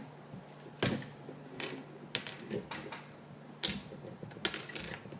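Plastic Lego bricks clicking and clattering as they are pulled off by hand: a handful of sharp, irregular clicks.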